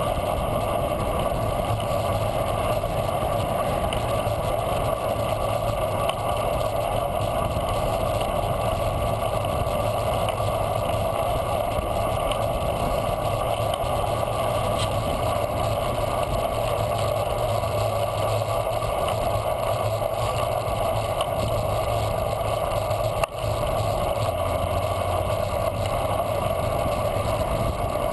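Steady rushing of wind and tyre noise from a bicycle rolling along a paved path, picked up by a handlebar-mounted camera, with one brief break about three-quarters of the way through.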